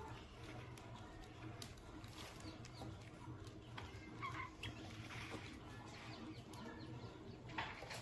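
Budgerigars chirping faintly and sparsely, a few short chirps clustering around the middle, with scattered light clicks and scratches.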